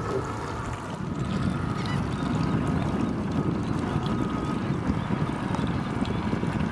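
Boat engine running at low speed while the boat moves slowly through the water, with a steady rumble that grows louder about a second in.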